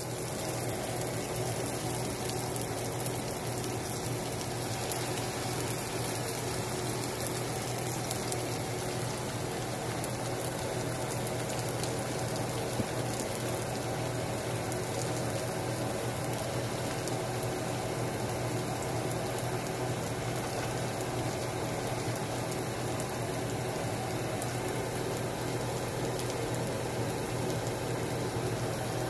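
Steady sizzling of food frying in a hot oiled frying pan: sausages, a fried hash and beaten eggs, with a few small pops. A steady low hum runs underneath.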